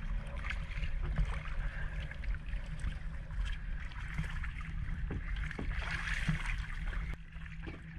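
Dive boat idling at the surface: a low, steady engine hum, with water slapping against the hull and a few light knocks as a diver climbs the stern boarding ladder.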